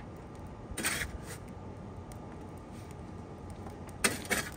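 A long-handled poker knocking and scraping in the steel firebox of a Central Boiler Classic 7260 outdoor wood boiler as the fire is stoked: a short clatter about a second in, then a louder burst of several quick metal clanks near the end.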